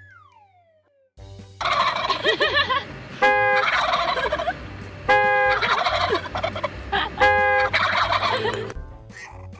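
Wild turkey toms gobbling in repeated loud bouts, with three short steady tones among them. A faint falling tone comes first.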